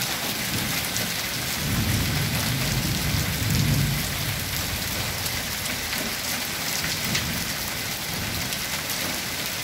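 Hail and heavy rain pelting wet, puddled ground: a dense, steady patter of countless small hits. A low rumble swells about two seconds in and fades by four.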